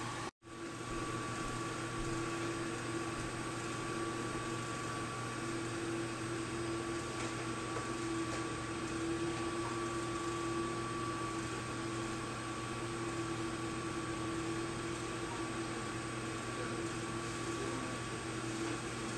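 Portable sawmill running steadily, a constant mechanical hum with a steady whine over it.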